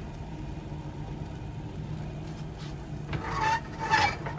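Steady low hum of a running fan motor, with two short high-pitched sounds near the end, the second the louder.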